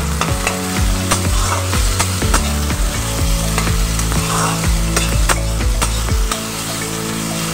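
Chopped onion, ginger-garlic and grated capsicum sizzling in hot oil in a kadai, stirred with a steel spatula that clicks and scrapes against the pan again and again. A low steady hum sits underneath.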